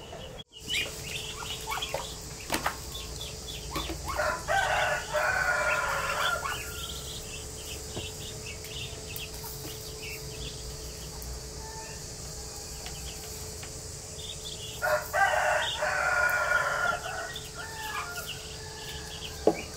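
A rooster crowing twice, each crow about two and a half seconds long and some ten seconds apart, over a steady high-pitched hiss.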